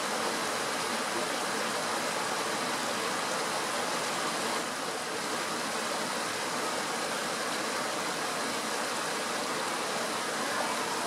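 Steady, even rushing noise with no bird calls.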